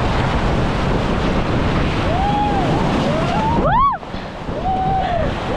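White-water rapids on the Ganges rushing around the raft, with wind buffeting the microphone. From about two seconds in come several high, drawn-out shouts that rise and fall in pitch, the loudest just before four seconds.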